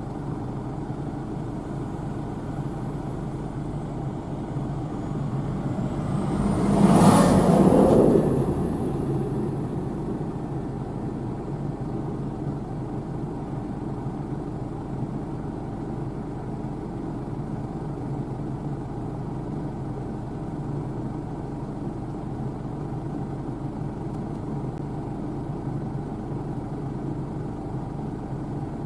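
New Holland TC5.80 combine harvester running steadily, its engine and threshing machinery making a constant hum. About seven seconds in the sound swells, with a brief high whistle, as it passes close by, then it settles back to the steady running.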